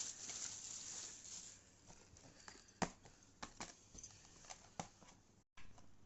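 Food packaging being opened: a rustling of paper or cardboard for about a second and a half, then a few light, separate clicks and taps.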